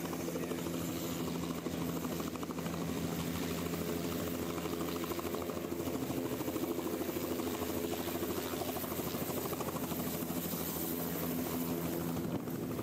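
Two-bladed light helicopter coming in and hovering low close by, its rotor beating and engine running steadily.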